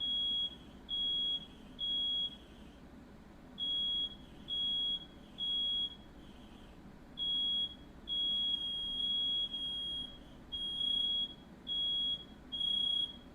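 Smoke alarm sounding in the three-beep-and-pause fire pattern: loud, high, steady-pitched beeps of about half a second each. From about seven seconds in the beeps run almost back to back. The alarm is set off by smoke from a house fire.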